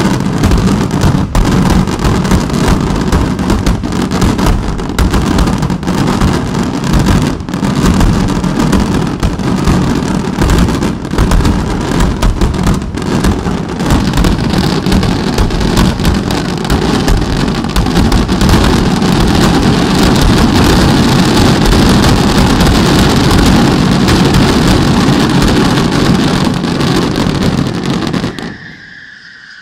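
Daytime fireworks going off in rapid succession: a dense barrage of bangs and crackling that merges into a continuous roar, growing steadier and denser about halfway through, then stopping abruptly just before the end.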